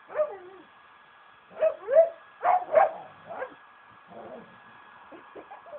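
Dog barking and yipping in a string of short calls that drop in pitch, loudest about two to three seconds in.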